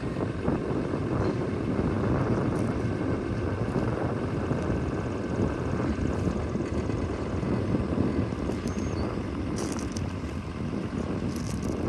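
Komatsu WA270 wheel loader's diesel engine running steadily as the loader arms lift the bucket, with a few short high-pitched noises near the end.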